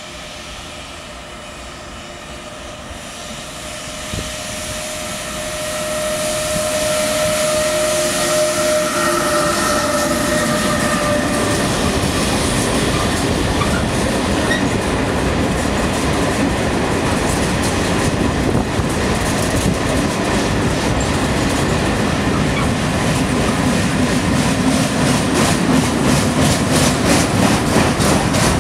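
A Renfe Class 253 electric freight locomotive approaches with several steady tones, growing louder over the first few seconds. Then a long train of ballast hopper wagons and intermodal wagons rolls past at speed, with a steady rumble and a fast, regular clicking of wheels over rail joints in the second half.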